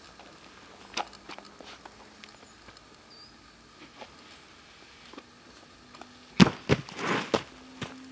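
Scattered scuffs and taps of a climber's shoes and hands on a granite boulder, with a louder knock and a short scraping rustle near the end.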